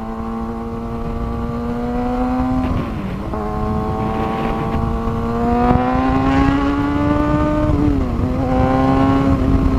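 Kawasaki ZX-6R's inline-four engine pulling under way, its pitch climbing slowly, dropping briefly about three seconds in and again about eight seconds in as the rider shifts up, with wind rushing past.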